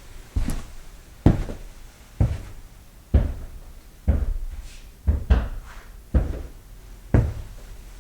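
Footsteps of a person walking on a hard floor and carpet, slow and steady at about one step a second. Each step lands as a dull thud, and some carry a crisp heel click.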